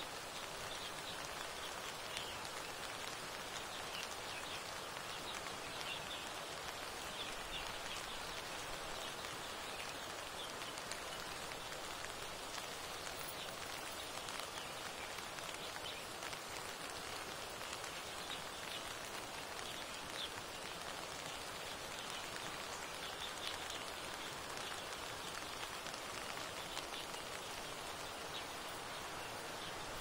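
Steady rain falling, an even hiss with faint, short, high ticks of drops scattered throughout.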